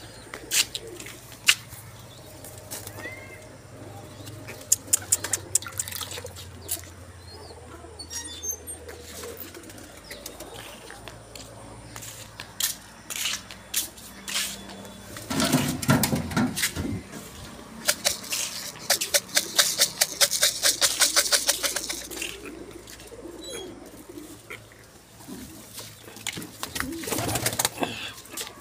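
Domestic pigeons in a loft cooing, with sharp knocks and rustling close to the microphone. A little past halfway there is a loud burst, then a rapid run of wing flaps lasting a few seconds.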